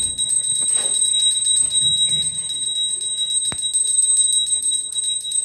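Hand-held puja bell rung rapidly and without a break during aarti, a steady high ringing, with one sharp knock about three and a half seconds in.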